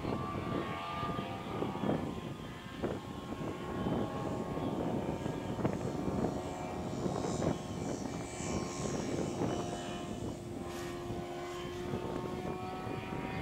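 Hurricane ultralight's engine and propeller droning overhead, the pitch drifting slowly up and down as the plane manoeuvres, with irregular gusts of noise over it.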